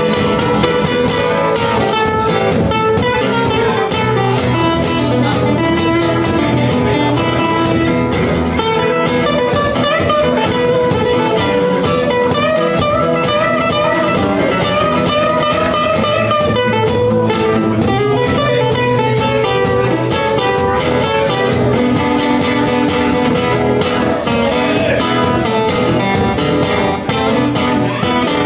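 Guitar music: an instrumental break of quickly picked guitar notes over a steady accompaniment, with no singing.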